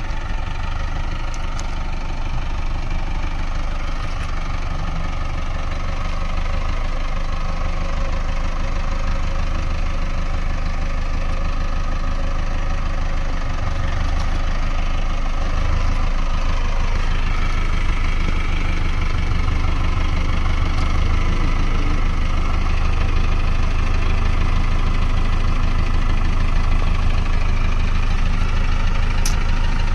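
Mahindra Arjun Novo 605 DI-i 4WD tractor's four-cylinder diesel engine running steadily at low revs as the tractor creeps down an embankment, growing gradually louder as it comes closer.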